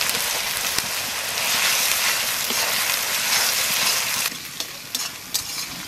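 Ginger paste, onion and garlic sizzling in hot oil in a metal kadai, a steady sizzle. About four seconds in the sizzle drops suddenly, leaving quieter frying with a few knocks of a spatula.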